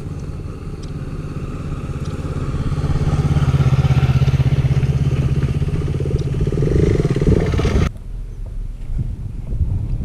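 Motorcycle engine running on an off-road climb, its steady note growing louder through the middle. The engine sound cuts off suddenly about eight seconds in, leaving a low rumble and wind noise on the microphone.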